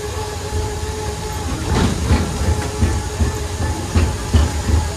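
Sightseer boardwalk tram car rolling over wooden boardwalk planks: a steady rumble broken by irregular low thuds about twice a second, with a faint steady hum underneath.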